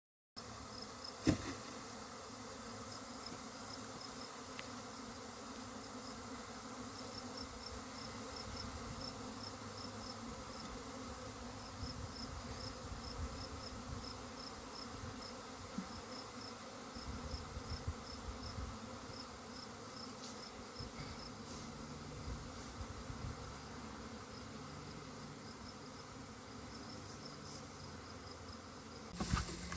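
Honey bee swarm humming as a steady low drone of many wings. A faint high chirp repeats a few times a second above it, with a sharp click about a second in and a few knocks near the end.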